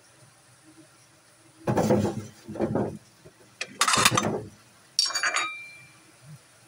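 Kitchen dishes and utensils clattering: a couple of short knocks and scrapes about two seconds in, a louder clatter at about four seconds, then a sharp clink that rings on briefly, like a bowl or plate being struck or set down.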